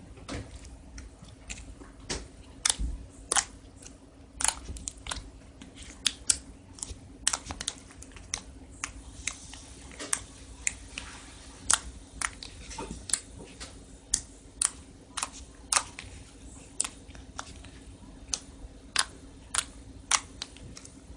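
Soft slime being squeezed and played with by hand, giving off irregular sharp clicks and pops about one or two a second.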